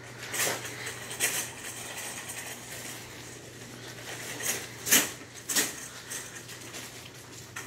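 A few sharp clicks and rattles of small store items being handled, the loudest about five seconds in, over a steady low hum.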